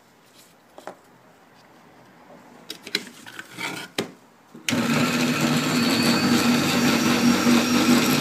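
A few light clicks and knocks, then a small electric machine switches on about four and a half seconds in and runs steadily with a constant hum.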